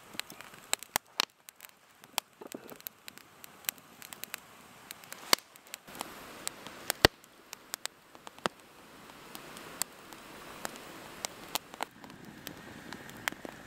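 Wood fire crackling, with irregular sharp pops and snaps over a faint steady hiss.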